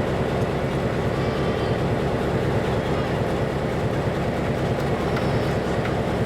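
A train running with a steady rumble.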